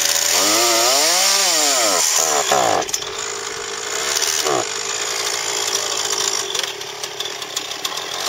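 Gasoline chainsaw engine running steadily, with a pitch that rises and falls once about a second in.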